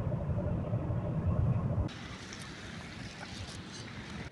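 Road and engine rumble heard inside a moving car's cabin, steady and heavy in the low end. About two seconds in it cuts off abruptly to a much quieter outdoor hiss with a few faint ticks.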